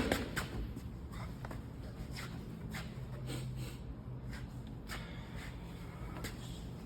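A brief knock, then faint shuffling and scattered light taps, like someone moving about quietly, over a low steady hum.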